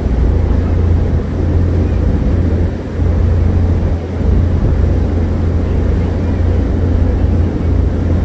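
Tour boat underway: a steady low rumble of engine and wind noise on the microphone, with no speech, dipping briefly a few times in the first half.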